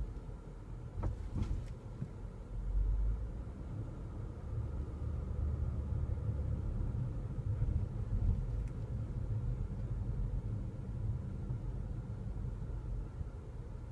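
Inside a 2015 Nissan Murano rolling slowly over speed bumps: a steady low road and suspension rumble that swells as the car goes over the bumps. A couple of sharp taps come about a second in, the intermittent popping or tapping from the rear that the owner is trying to trace.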